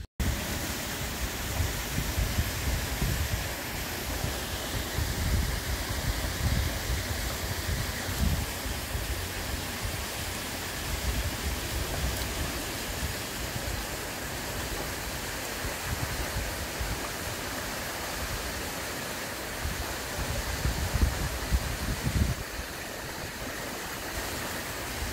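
Wind buffeting the microphone in uneven low gusts over a steady, even rushing hiss.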